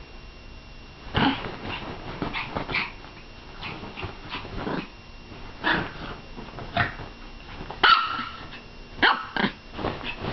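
Yorkshire terrier barking and growling in short, irregular bursts, worked up into a frenzy, the loudest bark about eight seconds in.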